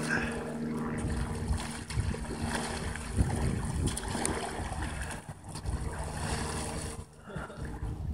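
Water splashing and sloshing around a capsized plastic kayak as it is rolled back upright in shallow water.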